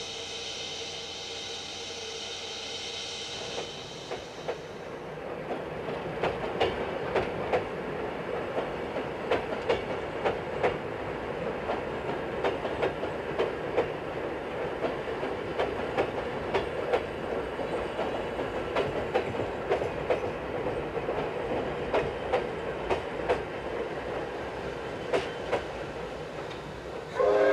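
Old-style steam-hauled passenger coaches rolling past, their wheels clacking over the rail joints again and again. A steady hum comes first, and the clacking starts about four seconds in.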